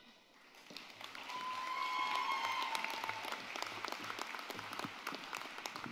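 Audience applauding, building up over the first couple of seconds and then slowly tapering off, with one person's long high cheer partway through.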